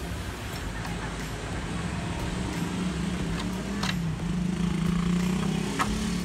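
A motor vehicle engine humming, growing louder over the last few seconds, with several short metallic clicks of hands and tools at a motorcycle's front wheel.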